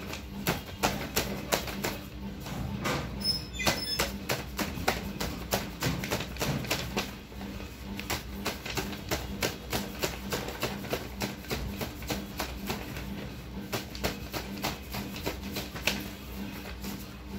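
Handmade paper envelopes being flipped and slapped down onto a stack: a quick, irregular run of sharp paper taps and flaps, about two or three a second, over a steady low hum.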